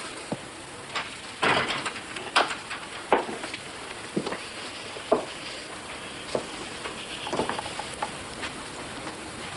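Steady hiss with scattered soft knocks and clicks, roughly one a second.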